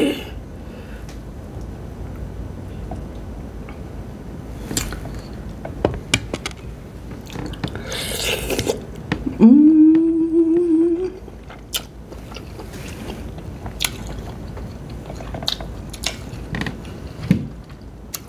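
Close-up eating sounds of sauce-dipped king crab meat: wet chewing and lip smacks with scattered small mouth clicks. About eight seconds in there is a short slurp, followed by a closed-mouth hummed "mmm" of about a second and a half that rises slightly in pitch.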